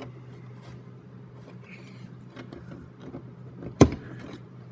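Small handling and rubbing noises of a plastic push-pin body clip being worked into a drilled hole in a body panel, with one sharp, loud click a little before the end. A steady low hum runs underneath.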